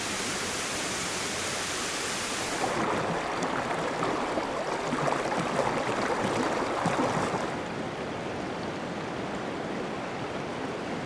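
Running water from cold mountain streams: a bright, rushing flow that cuts about three seconds in to louder splashing and gurgling water, which gives way near the end to a softer, duller flow.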